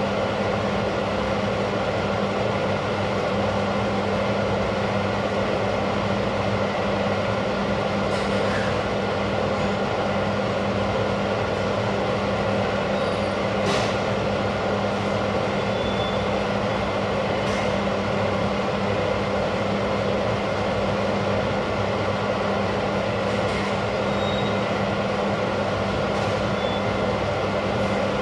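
Steady mechanical hum with a hiss, holding several even tones and never changing, with a few faint clicks.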